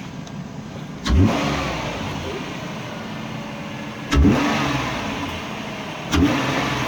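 Dodge Grand Caravan's 3.8 L V6 with a short ram cone-filter intake, revved three times in quick blips from idle, each rising sharply then falling back. The hood is shut, which quiets the intake noise.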